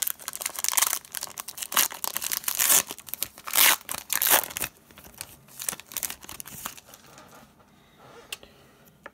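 Foil trading-card pack wrapper being torn open by hand and crinkled: rapid, loud crackling in bursts for about the first five seconds. It then dies down to light rustles and clicks as the cards are slid out.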